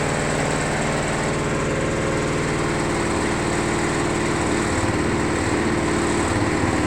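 Hydraulic cardboard baler's motor and pump running steadily, with a shift in the low hum about five seconds in. The operator thinks the hydraulics probably have air in them after sitting unused for a long time.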